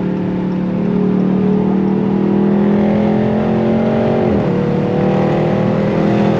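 2022 Dodge Charger Scat Pack's 392 (6.4-litre) HEMI V8 accelerating hard in a full-throttle pull. Its pitch climbs steadily, drops with an upshift about four seconds in, then climbs again.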